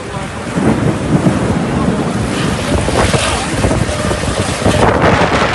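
Strong storm wind gusting and buffeting the microphone, growing louder about half a second in.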